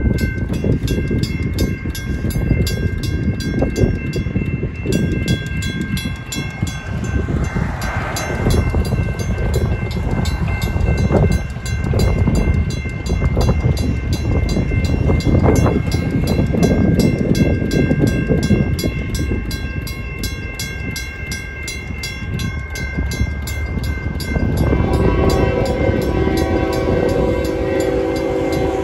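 Railroad crossing bells ringing through the activation: a General Signals Type 2 electronic bell and a WCH mechanical bell striking over and over, with wind buffeting the microphone. About 25 seconds in, the horn of an approaching freight locomotive sounds and holds.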